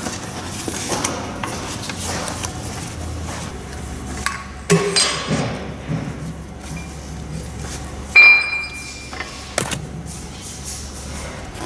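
Steel parts being handled: scattered knocks and metallic clinks as a cap is unscrewed and taken off the steel housing of a drill-pipe running tool. The loudest is a sharp, briefly ringing clink about eight seconds in.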